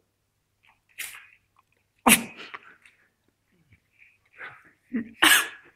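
Sudden explosive bursts of breath and voice from a person: a loud one about two seconds in and another near the end, with a smaller one about a second in and short puffs between.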